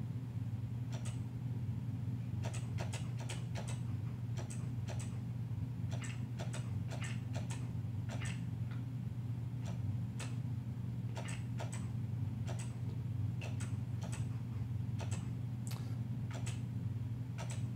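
Original Macintosh M0100 single-button mouse clicking, irregular sharp clicks roughly every half second to second, some in quick pairs, over a steady low hum.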